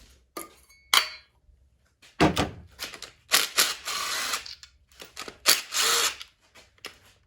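A metal tray clanks and rings as it is set down, then a thud, then several short bursts of a power tool, each about a second long, loosening the front-cover bolts on an LS engine.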